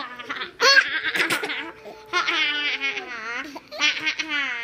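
Baby laughing in several bursts of pulsing, high-pitched laughter.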